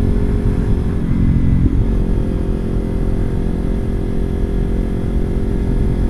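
Kawasaki Ninja 300's parallel-twin engine running under way at a steady road speed, its pitch rising a little about a second and a half in and then holding steady.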